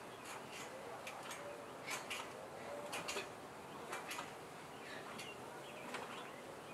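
Wooden beehive frames being worked loose by hand in a hive box: a run of sharp clicks and knocks, often in close pairs, with bees buzzing faintly underneath.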